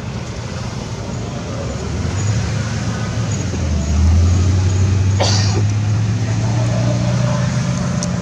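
A motor engine running with a steady low hum that grows louder about two seconds in and again about four seconds in, with a single sharp click about five seconds in.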